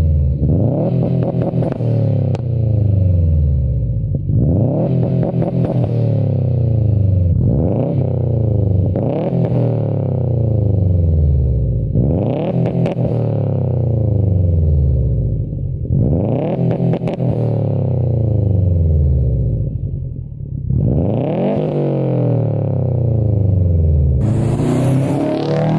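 2015 Subaru WRX STI's turbocharged 2.5-litre flat-four, breathing through a Grimmspeed catted downpipe and Invidia N1 exhaust, revved repeatedly: each rev climbs quickly and falls back slowly, about every four seconds. A sharp, hissy burst comes near the end.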